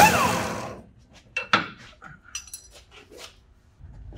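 A loud steady tool noise stops at the start and dies away within the first second, then scattered light metal clinks and knocks of hand tools and parts, a few with a short bright ring.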